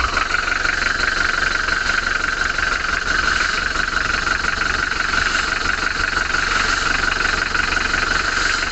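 Mitsubishi L300's four-cylinder diesel engine idling steadily with its diesel clatter, running crisp and smooth after its rocker arm bushings were replaced, the valves adjusted and the injector nozzles reset. A steady high-pitched drone runs over it.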